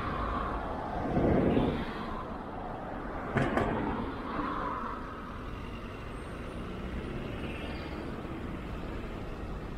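Road traffic passing on a street: a steady rush of vehicles, louder about a second in, with a short sharp burst about three and a half seconds in.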